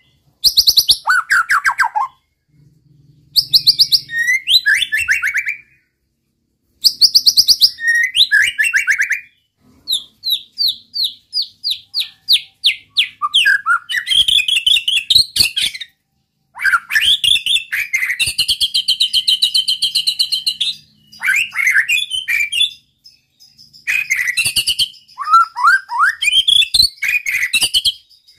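White-rumped shama (murai batu) singing loudly in separate phrases with short pauses between them. The phrases mix fast ticking trills, down-slurred whistles, a run of repeated notes and a few longer held notes.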